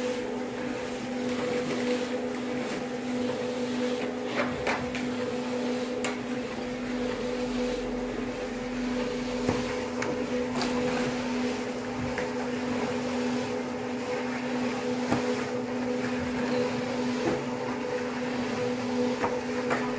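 Conical dough rounder running with a steady electric-motor hum, with a few light knocks and clicks over it.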